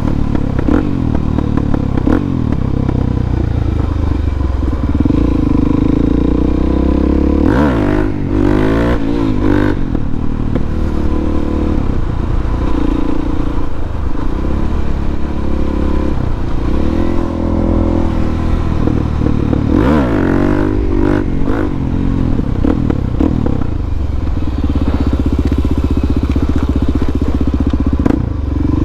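Harley-Davidson Dyna's V-twin engine running under way. The engine pitch swings up and down about a third of the way in and again about two-thirds of the way in, as the bike revs and shifts.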